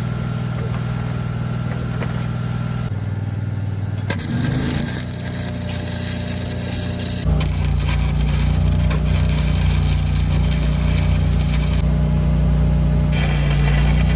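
Engine-driven welding machine running steadily, picking up speed and getting louder about seven seconds in as it comes under load, with the crackle of a stick-welding arc.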